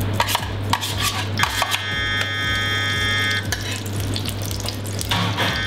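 A metal spoon scraping and clinking against a stainless steel gastronorm pan while ghee is scooped out, with most of the clinks in the first two seconds. A steady low hum runs underneath.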